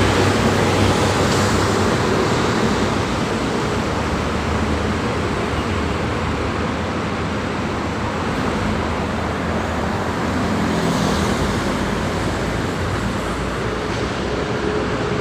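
Road traffic noise: vehicle engines running with a steady hum under an even rush of road noise.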